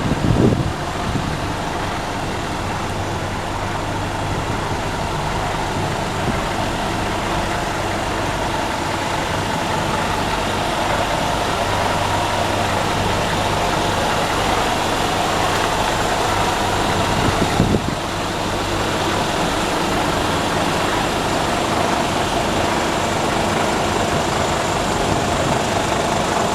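Diesel engine of a Scania P280 rigid truck idling steadily, with a single brief knock partway through.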